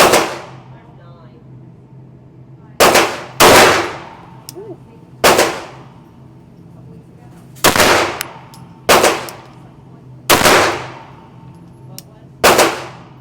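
Pistol shots fired one at a time, about eight in all and unevenly spaced, each with a short fading echo.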